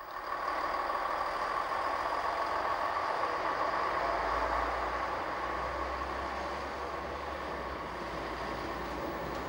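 Metre-gauge electric railcar set of the Fribourg Railways running slowly through a station: a steady running sound with a held tone, joined about four seconds in by a deeper rumble.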